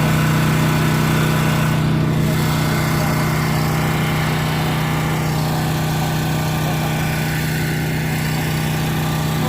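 Engine running steadily at idle, an even low hum with a constant pitch.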